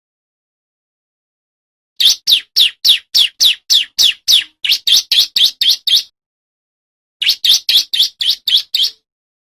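Male ciblek (prinia) singing in rapid-fire bursts of sharp, high chirps, about three to four a second, each a quick downward sweep. There are two bursts: a long one starting about two seconds in, and a shorter one after a brief pause.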